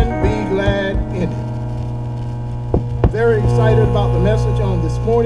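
Loud, steady electrical mains hum through the PA sound system, a low buzz with overtones stacked above it, typical of a ground loop. A few knocks sound over it, near the start and around three seconds in.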